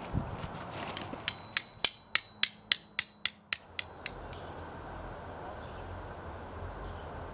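About eleven quick, evenly spaced metallic strikes, a hammer driving a steel tent stake, each one ringing briefly. They start a little over a second in and stop about four seconds in.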